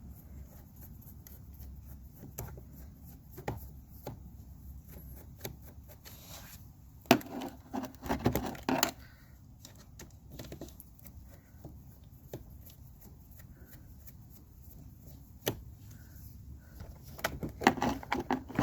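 Scattered clicks, taps and small scrapes of a tool and hands working loose the negative terminal screw of a small scooter battery, busiest about seven to nine seconds in and again near the end.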